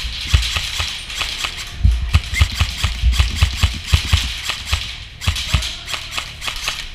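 Airsoft gunfire and BB hits during a firefight: an irregular run of sharp clicks and snaps, several a second.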